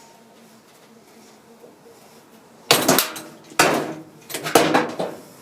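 Three bursts of metal clanking and scraping, starting a little under three seconds in, as steel parts knock against sheet-steel car body panels.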